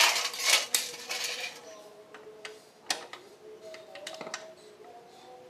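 Metal scooter engine parts clinking and knocking as they are handled and fitted back together: a sharp click at the start, a second or so of scraping and rattling, then a few lighter knocks.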